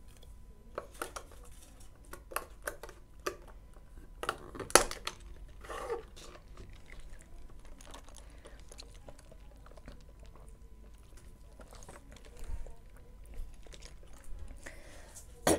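Close-miked handling sounds at a table: scattered small clicks, taps and crinkles of food packaging. They are busiest in the first six seconds, with a sharp click about five seconds in, and then it is mostly quiet.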